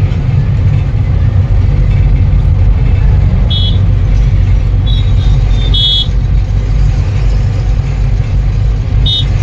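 Heavy, steady low rumble of a truck driving on the highway. Four short high-pitched beeps or toots are heard: about three and a half seconds in, around five and six seconds, and just before the end.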